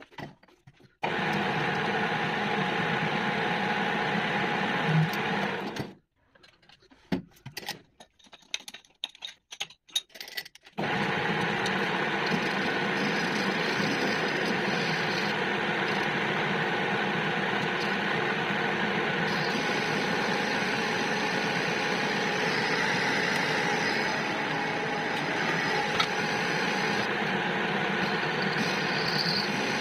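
Metal lathe running with a steady mechanical hum while a centre drill in the tailstock chuck bores into the end of a steel shaft. The lathe stops about six seconds in, a few faint clicks and knocks follow, and it starts again about eleven seconds in and runs steadily.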